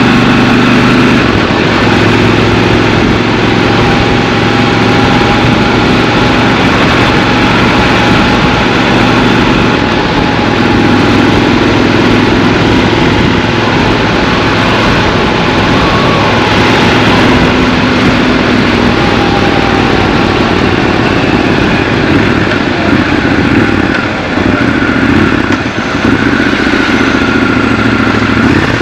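Triumph Scrambler 1200 XC's parallel-twin engine running under way, its note shifting up and down several times with throttle and speed.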